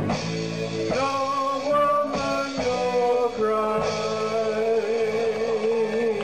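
Live reggae band playing an instrumental passage of sustained notes and chords; from about three seconds in one note is held with a wavering vibrato.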